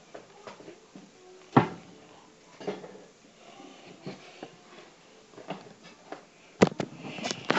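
Scattered soft knocks and clicks of handling, with a louder knock about a second and a half in and another near the end.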